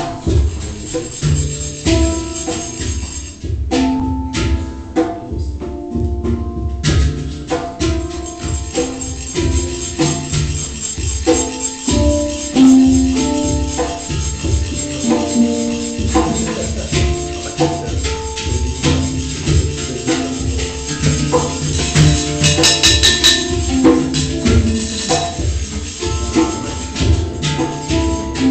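Hang drum playing short ringing melodic notes over djembe hand-drum strikes, with a brief bright jingling rattle about three-quarters of the way through.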